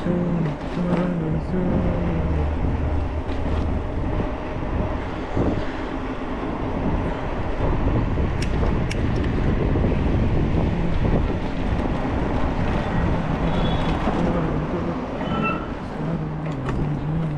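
Road traffic noise: a steady rumble of vehicles on the street.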